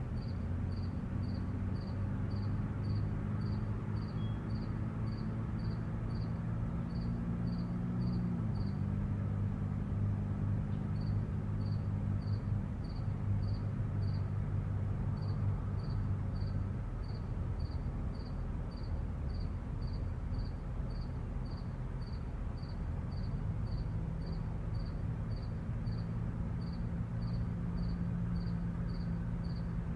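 A cricket chirping steadily, about two chirps a second, with a couple of short breaks, over the low hum of vehicle engines. The engine hum drops in pitch about a third of the way in and fades out a little past halfway, and another engine hum comes up for the last few seconds.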